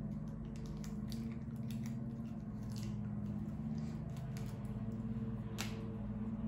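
Plastic wrap around a plant pot rustling and crinkling softly as the potted plant is handled and turned, with scattered light clicks and one sharper rustle near the end. A steady low hum runs underneath.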